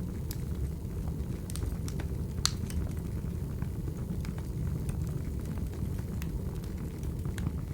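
Wood fire burning: a steady low rumble of flames with scattered small crackles and pops, one sharper pop about two and a half seconds in.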